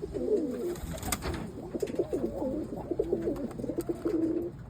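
Several roller pigeon cocks cooing over one another in a steady, overlapping chorus of low, wavering calls, with a few sharp clicks mixed in. This puffed-up cooing of cock birds means they are either courting or squaring up to fight.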